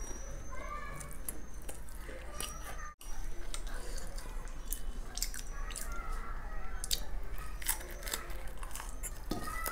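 Close-miked eating: biting and chewing a crisp fried dal kachori with potato curry, with many small crunches and wet mouth clicks.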